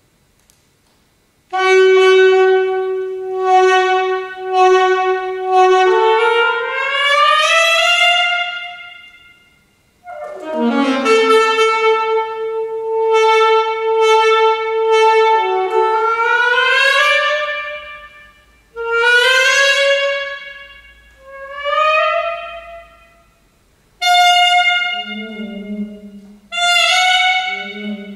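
Solo saxophone playing a contemporary concert piece. It starts after a moment's pause with a held note restruck several times, then slides upward. A swoop up from a low note leads into a long held note and another upward slide. Short phrases follow, and it ends on low notes.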